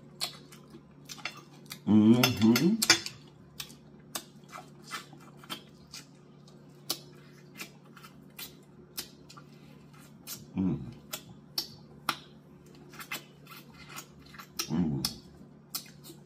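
Close-up eating sounds: frequent sharp mouth smacks and crackles as fried chicken necks are picked apart by hand and chewed. A few short hummed 'mm' sounds come about two seconds in, near eleven seconds and near fifteen.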